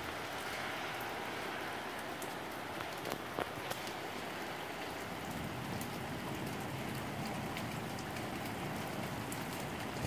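Steady rain falling, an even hiss with scattered sharper drip taps, a few of them about three seconds in.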